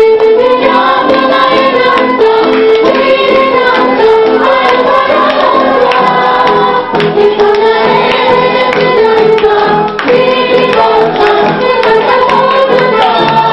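Music: a song sung by several voices together over a steady beat, starting abruptly.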